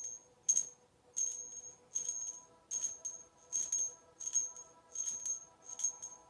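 Small hand bell rung steadily as a ritual ringing, about one ring every three-quarters of a second, each stroke a bright jingling shake with a lingering ring.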